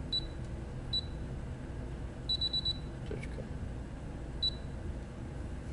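Brother embroidery machine's control panel beeping as keys are pressed to enter a name: short high beeps, one at the start, one about a second in, a quick run of about five near the middle, and one more later.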